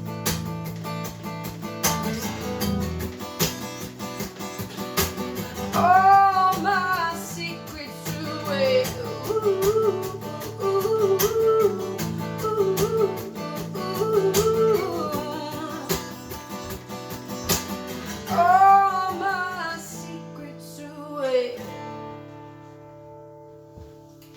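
Acoustic guitar playing the song's closing bars with a wordless sung "ooh" melody over it, dying away as the last chord rings out near the end.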